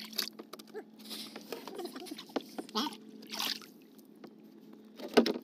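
Netted tilapia flapping on the wet floor of a small boat: scattered wet slaps and short splashes, with a sharper knock near the end.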